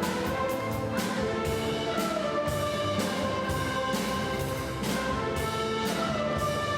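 Orchestra playing live, holding sustained chords over sharp percussive strikes about twice a second.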